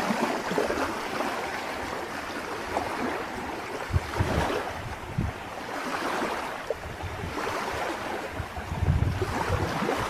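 Small waves lapping on a sandy lake shore, with wind buffeting the microphone in gusts about four seconds in and again near the end.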